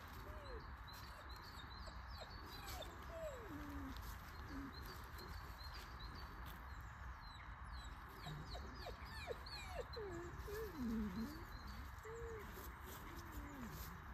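A dog whining and whimpering in a run of short, wavering high whines, sparse at first and coming thick and fast in the second half, loudest about eleven seconds in. Small birds chirp faintly in the background.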